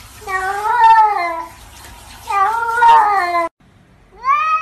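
A cat meowing: two long, drawn-out meows a second apart, the second cut off suddenly, then a third meow starting near the end.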